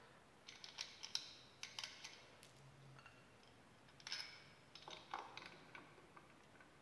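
Faint clicks and light metal clinks as a pulley bracket and its bolts are handled and offered up to an engine's aluminium cylinder head, in two short clusters: from about half a second to two seconds in, and again from about four to six seconds in.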